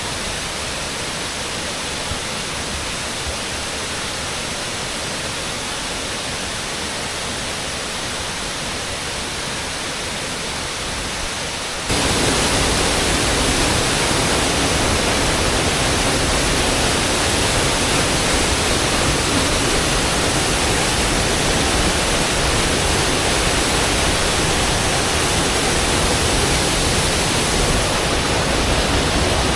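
Waterfall: the steady rush of falling water, which jumps suddenly louder and fuller about twelve seconds in.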